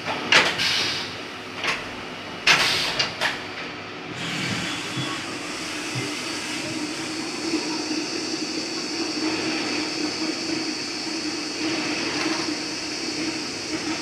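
CNC vertical milling machine: a few sharp clunks and short hissing bursts in the first few seconds, then the spindle runs with a steady high whine and low hum as a small end mill cuts a slot in a flat metal bar.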